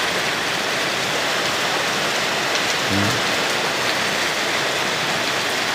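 Light rain falling steadily with no wind: an even hiss of drops.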